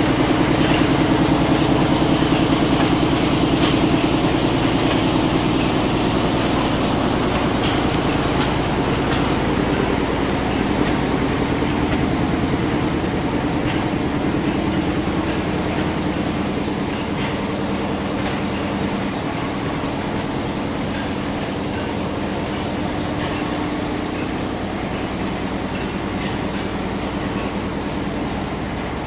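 Several vintage stationary engines running together in a machinery shed: a steady mechanical hum with scattered clicks and knocks, getting gradually quieter.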